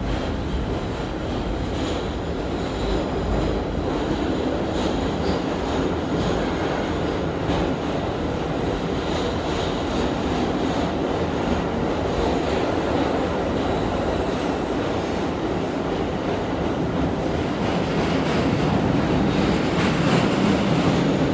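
1964 Budd R32 subway car running through a tunnel, heard from inside the car: a steady rumble of wheels and traction motors with occasional clicks over the rail joints, growing a little louder near the end.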